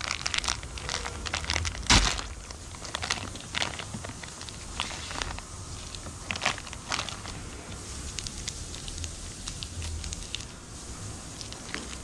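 Plastic wrapper of a Mars mini chocolate bar crinkling as it is unwrapped, in scattered crackles with one loud crackle about two seconds in.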